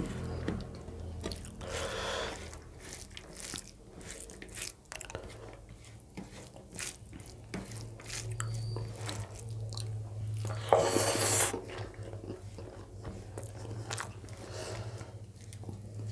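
A person chewing and eating a rice-and-dal meal, with many small wet mouth clicks. A brief, louder hiss comes about eleven seconds in.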